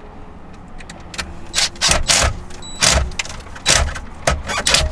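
Cordless drill-driver run in several short bursts, driving the screws that hold the aftermarket head unit in its mounting bracket. The bursts begin about a second in.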